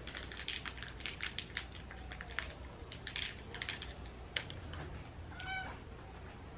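A small bell on a cat's collar ringing and jingling with quick light clicks as the cat moves and eats a treat from a hand. The ringing stops about five seconds in, followed by a brief high meow.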